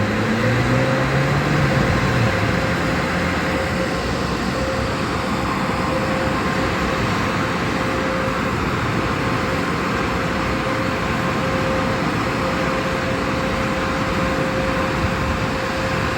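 Touchless automatic car wash machinery running: a steady loud rush with a constant hum. A vehicle's engine note rises and fades in the first couple of seconds.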